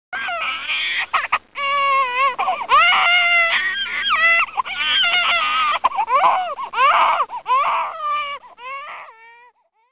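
A baby crying in a series of high-pitched wails that start suddenly and cut off shortly before the end.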